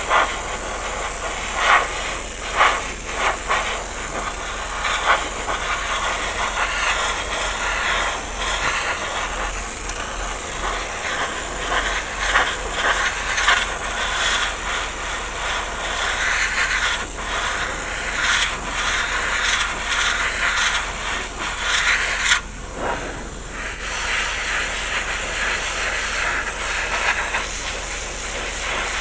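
Airbrush spraying primer, a steady hiss with a brief pause about three quarters of the way through.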